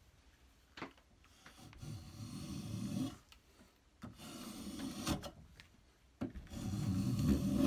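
A vintage curved-sole Record 151 spokeshave cutting shavings along the edge of a wooden board held in a vise: three pushed strokes, each a rasping scrape lasting about a second and a half, with a light click about a second in.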